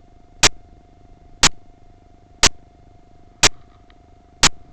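Sharp clicks, one a second in an even beat, five in all, over a faint steady hum.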